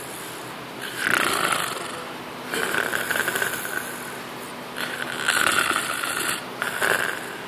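Loud snoring: a run of rasping snores, about one every two seconds, with quieter breathing between.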